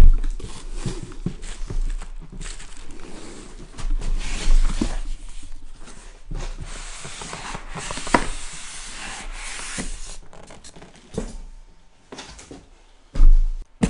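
Cardboard box of a PC case being handled and opened, cardboard rubbing and scraping as the case, in foam end caps and plastic wrap, is slid out of it. Heavy thumps come at the start and again near the end.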